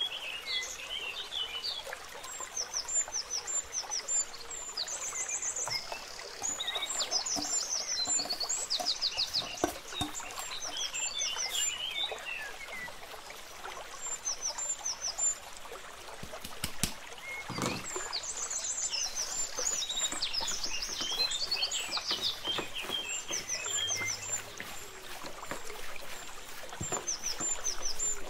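Small birds chirping and singing in short, high, repeated phrases. Under them are the rustle and soft clicks of sliced vegetables being tipped into a bowl and mixed by hand, with a single knock about two thirds of the way through.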